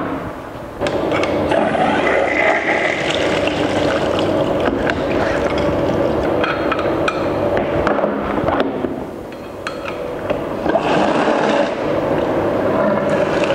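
Water sloshing and splashing in a plastic tub as stainless-steel fermenter fittings and valves are washed by hand to clear yeast residue, with scattered metal clinks and scrapes.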